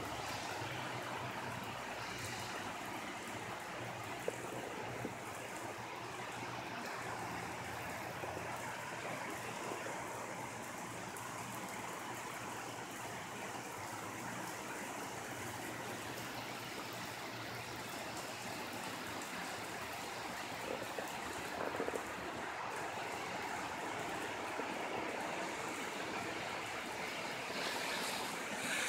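Steady rain falling, an even hiss of water that holds without a break.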